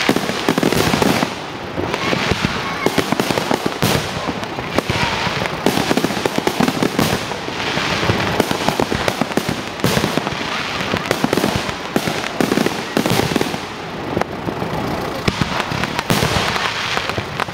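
Fireworks going off in a dense, unbroken barrage of bangs and crackling, one shot after another with no pause.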